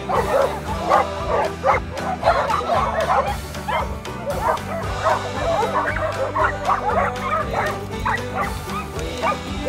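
Many dogs barking excitedly at once, a dense run of short overlapping barks, over steady background music.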